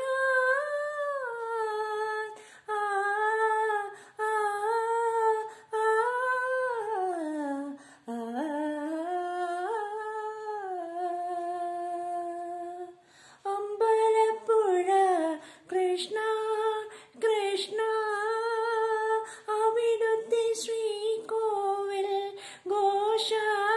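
A woman's unaccompanied voice singing the melody of a Malayalam devotional song to Krishna without words, mostly humming, in long held notes with slow glides up and down between phrases.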